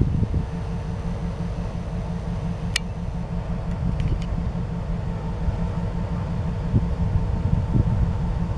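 Diesel engine of an Indiana Harbor Belt end-cab switcher locomotive running as it rolls slowly up with a boxcar, a steady low rumble with a faint hum above it. A brief sharp click about three seconds in.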